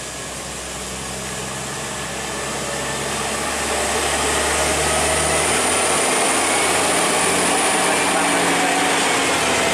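Heavy diesel engine of a Hino tractor-trailer pulling uphill. It grows steadily louder over the first half as the truck closes in, then runs at a steady level close by.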